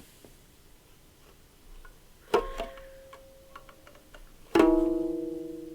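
Two single plucked notes on a string instrument from Ethiopia, each ringing on and slowly fading. The second, about two seconds after the first, is louder and rings longer.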